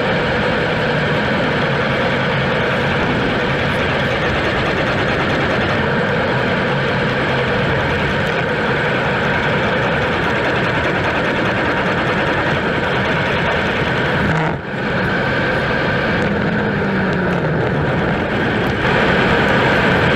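Steady wind rush and tyre-on-asphalt road noise on a GoPro action camera's microphone while riding a road bike. The sound breaks briefly about three quarters through and jumps a little louder near the end, where clips are cut together.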